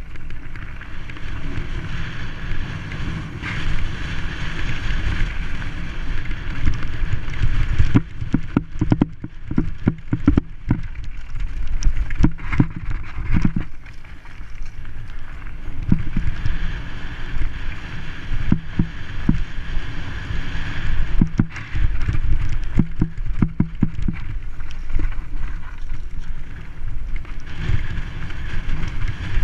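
Wind rushing over a helmet-mounted camera as a mountain bike descends a dirt trail, with the tyres rolling over the packed dirt. The bike rattles and knocks over bumps in a cluster about a third of the way in and again later.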